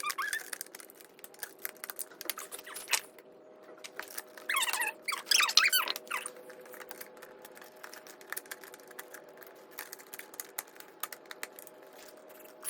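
Light plastic clicks and taps from a visor being fitted onto a motorcycle helmet. About halfway through comes a burst of high, wavering squeaks, the loudest sound.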